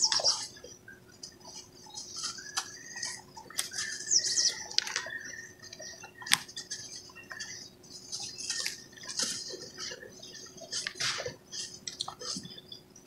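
Dry cement lumps crumbled and crushed by hand in a plastic basin, with powder and grit pouring down in gritty, crackling hisses. Sharp clicks come at the start, about six seconds in and about eleven seconds in.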